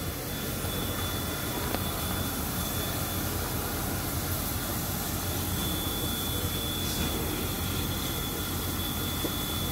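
Steady hiss and rumble of a standing train, with the DT668 steam locomotive venting steam low at its front. A faint thin high whine sits above it, fading for a few seconds in the middle.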